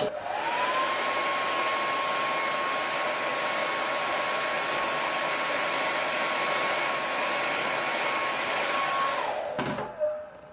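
Handheld hair dryer blowing hot air onto a vinyl lens skin to soften the film so it stretches over the edge without wrinkling. Its motor whine rises as it starts, runs steadily, then winds down and stops near the end, followed by a brief knock.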